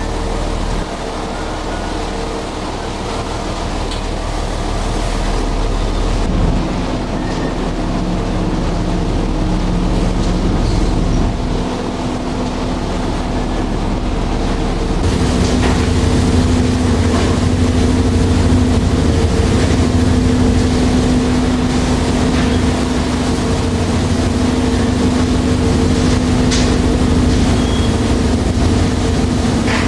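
Beam trawler's engine and machinery running with a steady drone and hum, the low rumble growing louder about halfway through.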